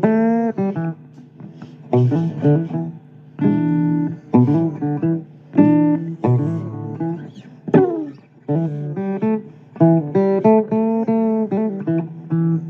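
Blues guitar playing an instrumental break between sung lines: phrases of picked notes and chords, with bent notes and a falling slide about two thirds of the way through.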